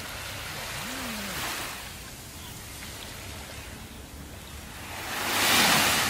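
Small waves washing onto a sandy beach: a gentle swell of surf about a second in, then a louder wave breaking and washing up the sand near the end.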